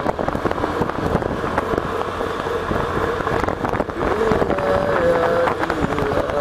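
Motorcycle being ridden along a road, its engine running under wind buffeting and crackling on the bike-mounted microphone.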